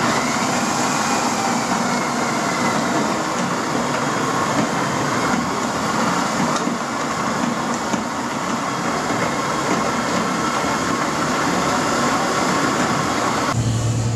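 Electric drill driving a Daddy Mill homebrew roller mill, running steadily as it crushes malt for brewing. It cuts off abruptly near the end, and a low steady hum takes over.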